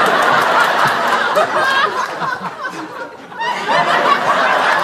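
A group of people laughing together, many voices overlapping; the laughter dies down briefly about three seconds in, then swells up again.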